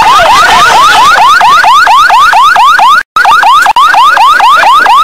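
An electronic siren in a fast whooping pattern: a tone sweeping sharply upward and dropping back about four times a second. It breaks off for an instant about three seconds in.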